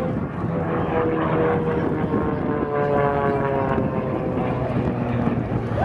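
Extra 300 aerobatic plane's six-cylinder Lycoming engine and propeller droning overhead, the pitch sliding down in the middle as it passes.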